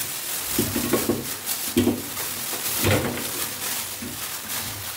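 Plastic bag rustling and crinkling as raw duck wings are shaken out of it into a steel wok, with a few soft thuds as they land.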